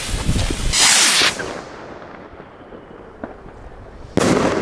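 A firework rocket lifting off: a loud hissing whoosh about a second in that fades as it climbs, then a sudden loud bang just past four seconds as it bursts in the air.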